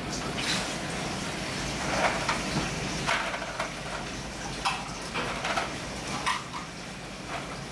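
Dining-table background: a steady low hum with about ten short clicks and clatters scattered through it.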